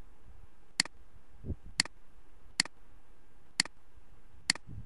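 Sharp, short clicks about once a second, five in all, over a faint steady hiss, with a soft low thud about a third of the way in and another near the end.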